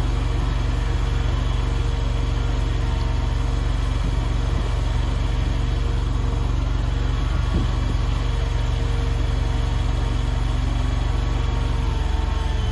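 Engine of an AGT LRT23 stand-on mini skid steer loader (739cc) running steadily, its note shifting slightly near the end.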